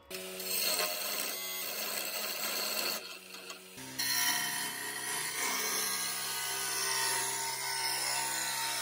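Wood lathe running, with a hand-held abrasive rubbing along a spinning ash wand blank: a steady hum with a hissing scrape on top. It starts abruptly, dips briefly about three seconds in, then resumes louder.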